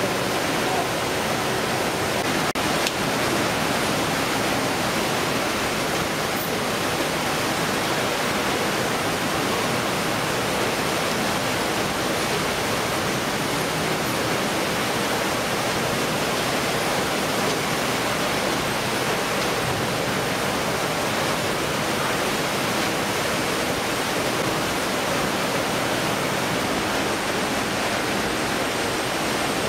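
Steady, even rushing noise of a fish processing line, with no rhythm and no change in level.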